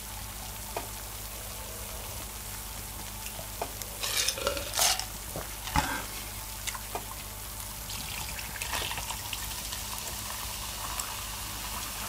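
Food sizzling steadily on an electric griddle, with a few sharp clicks and knocks from a glass of ice and a soda can being handled and drunk from, loudest about four to six seconds in.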